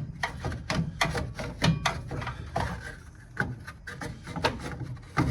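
Fan shroud being worked into a tight fit in a car's engine bay, giving irregular knocks, clicks and rubbing as it bumps and scrapes against the surrounding parts.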